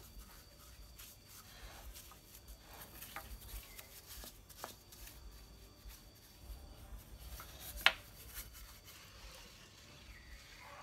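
Small paintbrush rubbing wood polish onto a carved wooden statue: quiet brushing and scraping with scattered light ticks, and one sharp click near the end.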